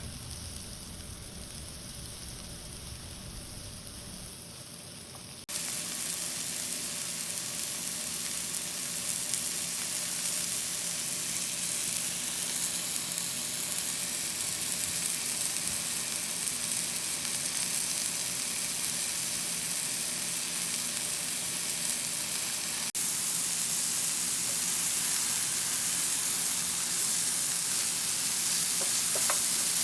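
Mushrooms sizzling in butter in a non-stick frying pan: a steady frying hiss, fainter at first, then suddenly louder and brighter about five seconds in, and a little louder again near the end.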